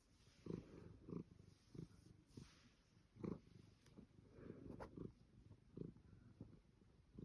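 Savannah cat purring faintly while being stroked, a low pulsing purr that swells and fades with each breath.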